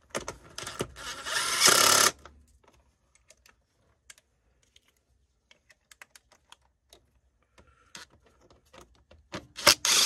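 Cordless impact driver rattling on battery terminal bolts in two bursts of about a second each, one near the start and one at the end. Light clicks of metal parts being handled between them.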